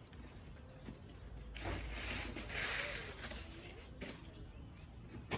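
Rustling and scraping of things being rummaged through in a box. It swells for a couple of seconds about two seconds in, with a few faint knocks.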